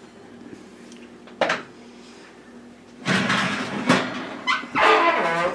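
Metal baking pans being handled. There is a sharp knock about a second and a half in, then a few seconds of louder clattering and scraping, with a brief squeaking, wavering sound near the end.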